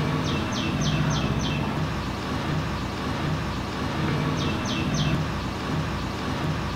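Steady low background rumble, with a quick run of five short high chirps in the first second and a half and three more about four and a half seconds in.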